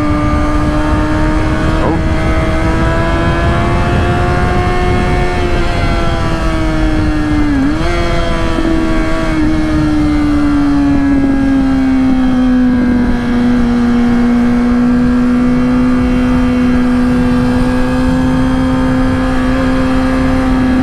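2005 Kawasaki ZX-6R's inline-four engine running at a steady highway cruise, with wind rushing past. The engine note climbs a little, dips for a moment about seven and a half seconds in, then eases lower and holds steady.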